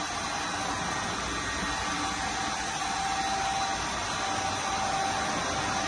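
Steady rushing noise of a yacht engine room's machinery and ventilation, an even hiss with a faint steady whine that comes in about two seconds in.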